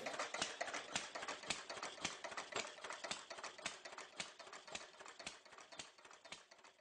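Model railway locomotive running on its track, a quick irregular clicking of the wheels over rail joints and points that fades away near the end.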